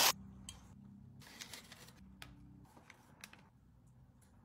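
Faint handling noises: soft rustles and a few light clicks over a low steady hum.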